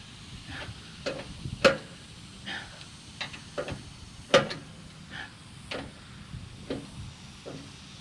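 Irregular knocks and clatter, with two sharper, louder knocks about one and a half and four and a half seconds in.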